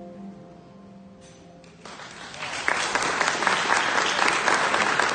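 A final held sung note with piano fades out, and about two seconds in an audience breaks into applause that quickly swells and carries on loudly.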